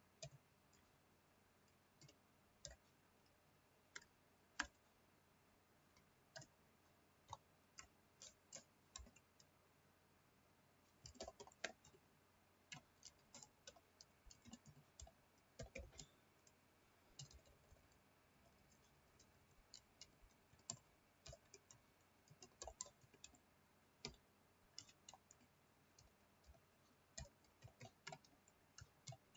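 Faint computer keyboard typing: irregular single keystrokes and short runs of them, with pauses between.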